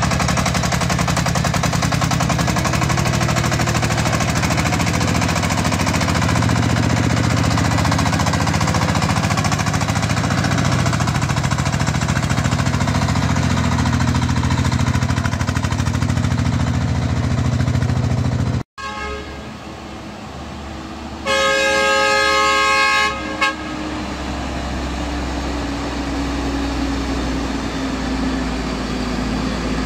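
The diesel engine of a Chinese farm tractor-truck running steadily as it hauls a bed heavily overloaded with boulders. After a cut, a truck horn sounds for about two seconds over a heavy lorry's running engine.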